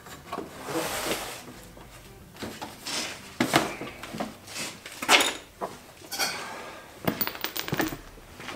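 A car's plastic front bumper cover being handled and pulled away from the car: scraping and rustling with a string of irregular knocks and clatters.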